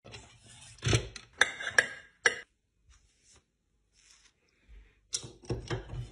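Kitchen knives being pulled from and slid back into a wooden knife block: short metallic scrapes and clicks about a second in, and another cluster near the end.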